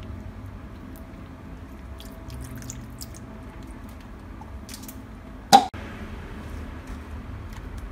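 A hand squishing and stirring wet, sticky slime mix of clear glue and water with blue colouring in a glass bowl, just after the activator has gone in and the slime is starting to bind: soft wet squelches with small scattered clicks. One sharp knock stands out about five and a half seconds in.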